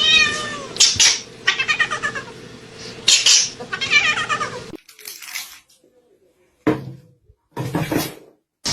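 A cat meowing, with several long calls one after another that rise and fall in pitch, then stopping abruptly, followed by two brief sounds near the end.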